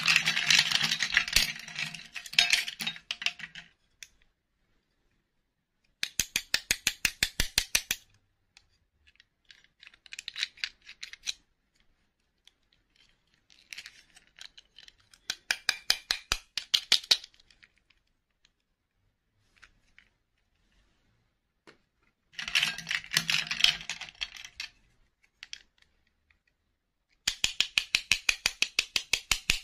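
Small plastic dolls and their clip-on plastic dresses handled in a bowl: repeated bursts of rattling and clicking, some of them fast, even runs of sharp clicks, with short quiet gaps between.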